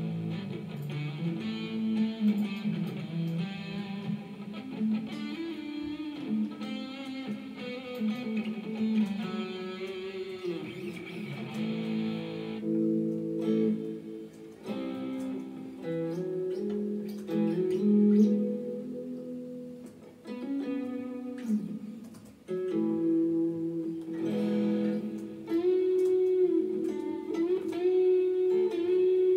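Guitar music played through a Bose S1 Pro portable PA speaker: a melody of held and sliding notes over a lower part, with no singing.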